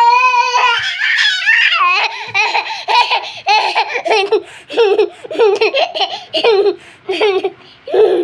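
A toddler laughing hard: a long high squeal at the start, then bursts of laughter about twice a second.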